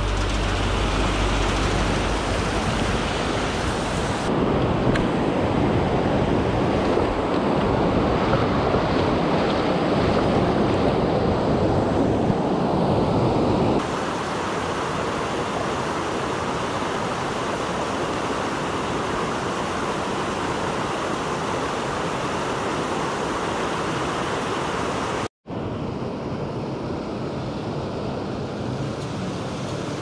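Mountain stream rushing over boulders in small cascades: a steady, loud rush of whitewater. Its tone shifts at cuts about 4 and 14 seconds in, and there is a brief gap about 25 seconds in.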